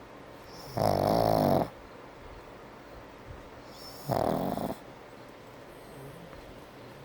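A pug snoring in its sleep: two snores about three seconds apart, each lasting under a second.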